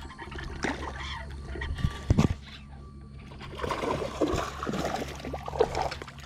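Water splashing and trickling at a kayak's side as a hooked bass thrashes and is brought aboard, with a couple of sharp knocks about two seconds in and the loudest splashing in the second half.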